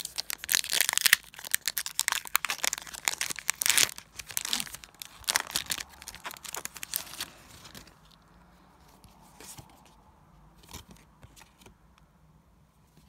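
Foil wrapper of a Pokémon Scarlet & Violet booster pack being torn open and crinkled: dense, loud crackling for about seven seconds, then only a few faint rustles and taps.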